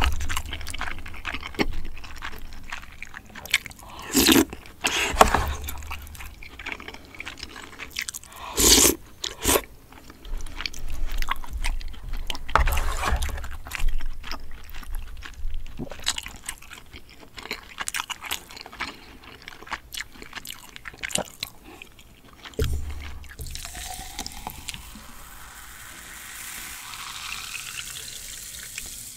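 Close-up eating sounds of creamy spaghetti: wet chewing and several loud slurps, with a utensil scraping the plastic tray. In the last five or six seconds a fizzy drink is poured from a plastic bottle into a glass, with a rising pitch as the glass fills and a fizzing hiss.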